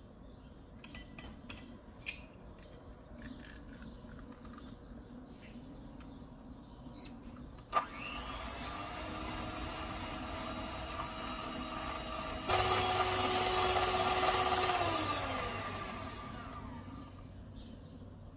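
Electric hand mixer switched on about eight seconds in, its beaters whirring through butter, sugar and egg in a glass bowl. It steps up to a higher, louder speed a few seconds later, then its pitch falls as it is switched off and winds down. Before it starts there are faint clicks of a silicone spatula against the bowl.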